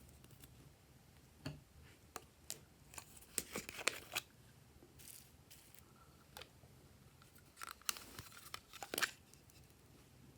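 Glossy slime being worked by hand, giving small sticky clicks and crackles in scattered clusters, the busiest about three to four seconds in and again near the end.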